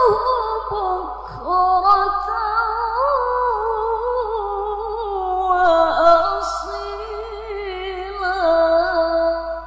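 A woman reciting the Qur'an in the melodic tilawah style through a microphone: long, high, ornamented phrases with rapid trills and wavering pitch, ending near the end.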